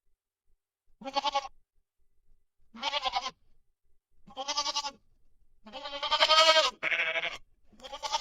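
Goat bleating: six quavering bleats about a second and a half apart, the fourth one longer than the rest.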